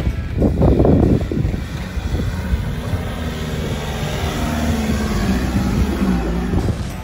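Nissan Patrol Y61's common-rail turbo-diesel engine working in soft sand, with a loud surge about a second in and then running steadily under load.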